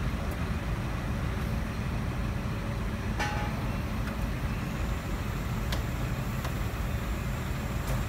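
Engine of an aerial work platform running steadily as a low rumble, with a short metallic clink about three seconds in and a lighter click near six seconds.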